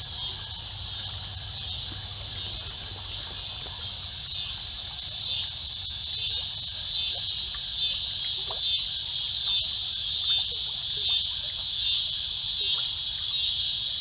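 Chorus of summer insects in the creekside woods: a shrill, pulsing drone that grows louder over the few seconds.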